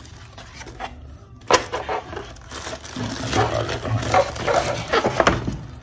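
Clear plastic wrap around a laptop crinkling and rustling as it is handled and pulled from a molded pulp packaging tray. There is a sharp knock about one and a half seconds in, and the crinkling is busiest in the second half.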